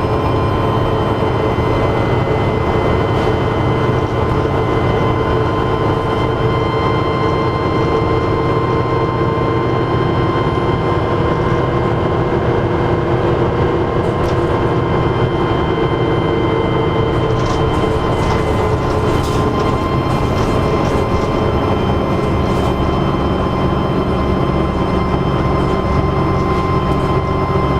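Dennis Trident double-decker bus running under way, its diesel engine rumbling steadily with a constant high turbocharger whine. A few light clicks or rattles come about two-thirds of the way through.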